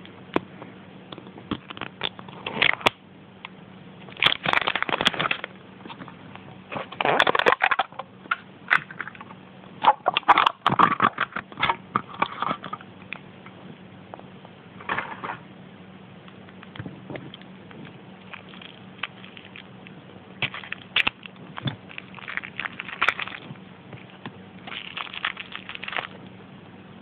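Plastic and foil packaging crinkling and crackling in repeated bursts, with sharp clicks, as a pudding egg's plastic container is opened and the small toy inside is unwrapped from its wrapper.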